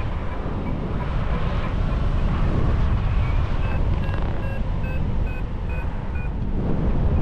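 Wind buffeting the microphone in a steady low rumble. Through the middle of it comes a run of short high chirps or beeps, about three a second, for some three seconds.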